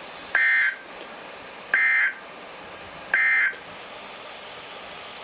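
Emergency Alert System end-of-message signal from a NOAA Weather Radio broadcast: three short, identical bursts of shrill warbling data tone, about a second and a half apart, over steady radio hiss. The three bursts mark the close of the severe thunderstorm warning.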